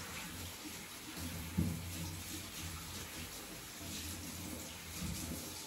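Kitchen tap water running over kale leaves being rinsed in the sink.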